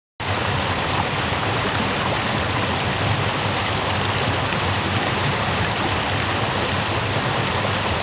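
Small thaw-fed waterfall: meltwater pouring over a low rocky step into a foaming pool, a steady rushing and splashing.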